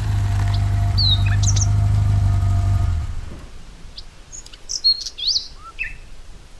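Birds chirping in short, quick calls over a steady low hum. The hum cuts off about three seconds in, leaving only the chirps.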